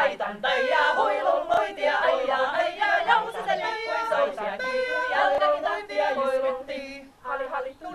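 A women's folk choir singing a Finnish folk song a cappella, with long held notes. The singing breaks briefly about seven seconds in.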